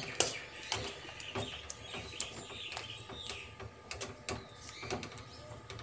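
Metal spoon stirring thick broken-wheat milk pudding in an aluminium kadai: irregular light clicks and scrapes of spoon on pan, about two a second.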